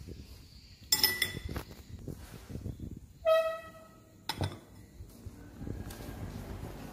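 Ceramic bowls and glass plates being handled on a table, with sharp clinks that ring briefly about one second and four and a half seconds in. A short high tone sounds about three seconds in.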